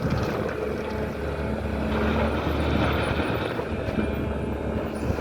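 SANY excavator's diesel engine running steadily.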